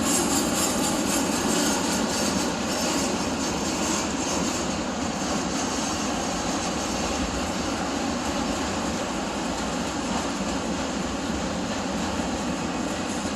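Norfolk Southern freight train rolling past, a steady rumble of wheels on rail that eases a little toward the end.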